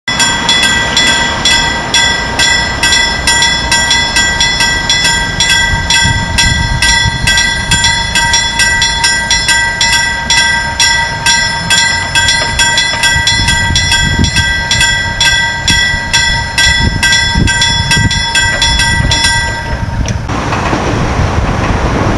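Railway sound: a steady ringing clang repeating about two and a half times a second over a low train rumble. The clanging stops about twenty seconds in, leaving the rushing noise of the train.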